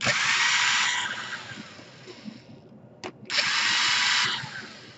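Power screwdriver backing out laptop case screws: two bursts of about a second each, the first at the start and the second about three seconds in, each ending in a falling whine as the motor spins down. A sharp click sounds just before the second burst.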